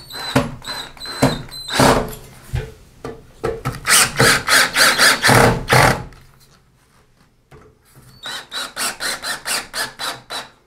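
Cordless drill with a screwdriver bit driving and snugging up a grab bar's flange screws into wall anchors in a series of short repeated bursts, about four a second. The bursts pause for about two seconds in the middle and then start again.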